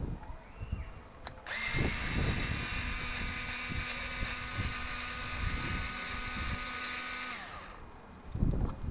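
Cordless electric screwdriver spinning up and running steadily for about six seconds with an even whine, backing screws out of a CD/DVD drive, then stopping; light handling knocks before and after.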